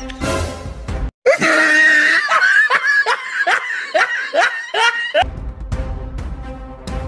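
Background music that cuts out about a second in for an edited-in laughing sound effect, a run of short rhythmic ha-ha pulses at about three a second; the music comes back about five seconds in.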